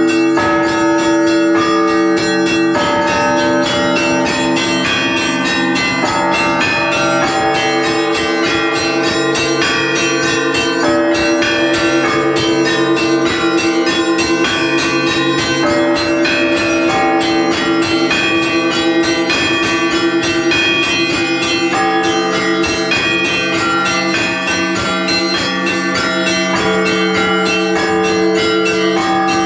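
Russian Orthodox church bells ringing the Paschal (Easter) peal: small bells struck rapidly and unceasingly over the steady hum of larger bells.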